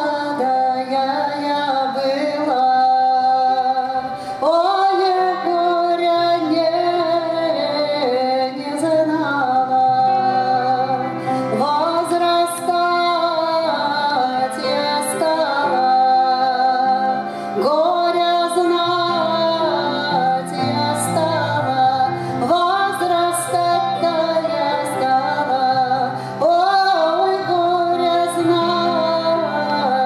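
A woman singing a traditional Russian folk song with grand piano accompaniment. Long sung phrases, each beginning with an upward scoop, are separated by brief breaths over continuous piano.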